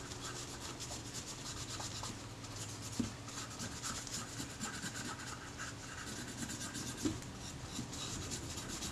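A small tool rubbing and scraping old, sticky leatherette adhesive residue off the metal body casting of a Kodak Retina IIIS camera, in quick repeated strokes, with a light click about three seconds in and again near seven seconds.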